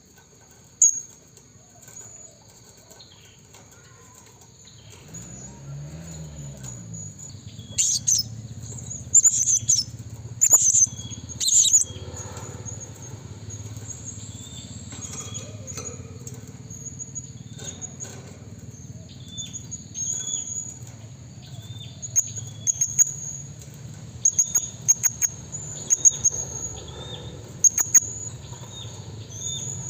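Blue-crowned hanging parrot (serindit) calling: repeated very high, sharp chirps, loudest in a cluster about eight to twelve seconds in, then a run of short falling notes. A low steady hum sits underneath from about five seconds in.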